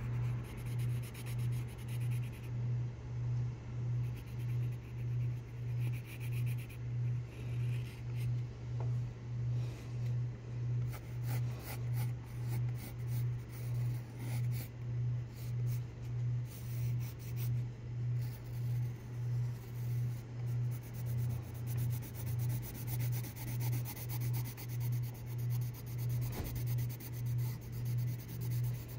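Graphite pencil scratching and rubbing on sketchbook paper while shading in dark areas, under a loud low hum that pulses evenly about three times every two seconds.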